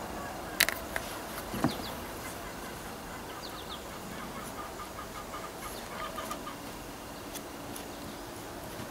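Chickens clucking in the background, with runs of quick repeated notes. Two sharp knocks come in the first two seconds.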